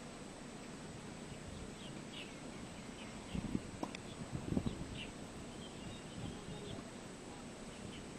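Faint outdoor ambience with birds chirping now and then, short high chirps scattered through, and a few soft low thuds about three to five seconds in.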